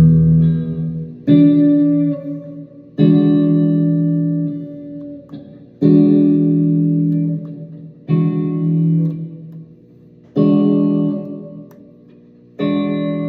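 Salvaged Stratocaster electric guitar with Mojotone '59 clone pickups: a chord is struck about every two seconds, six times, each left to ring out and fade before the next.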